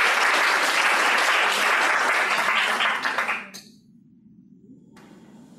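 Audience applauding, a dense patter of many hands clapping that dies away quickly about three and a half seconds in.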